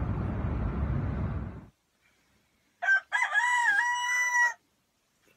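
Steady car-cabin road noise that cuts off abruptly about a second and a half in. After a short silence a rooster crows once, loudly: a short opening note, then a long held note with a brief dip in pitch.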